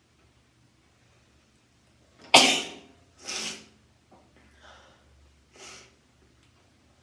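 A person sneezing, set off by a twisted tissue in the nose: one loud, sharp sneeze a little over two seconds in, followed about a second later by a second, weaker burst and then a few short, quieter bursts of breath.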